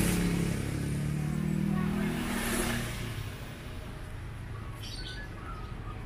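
A small motorcycle engine runs close by and fades away over the first three seconds as the bike moves off. A few short bird chirps come about five seconds in, over a quieter background.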